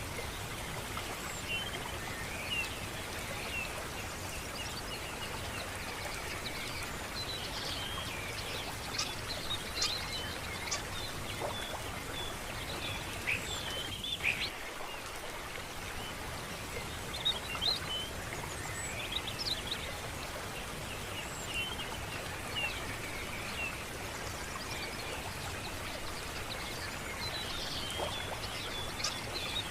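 Small birds chirping and warbling over a steady hiss of running water.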